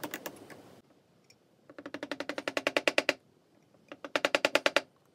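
Small hammer tapping quickly and lightly, about ten taps a second, fitting a wooden limber strake onto the frames of a model ship's hull. It comes in three runs of taps. The second and third runs grow louder as they go.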